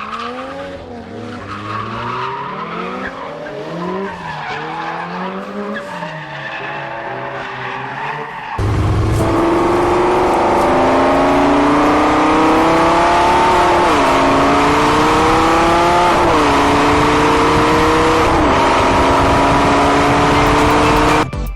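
Racing car sound effect: first a wavering squeal of tyres skidding, then a louder engine accelerating up through the gears, its pitch climbing and dropping at each shift about every two seconds.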